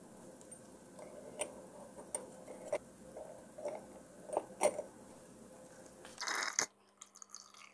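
Light clicks and taps of tweezers and small metal watch parts against small glass jars, scattered a few times a second or so. About six seconds in, a short louder rush of noise.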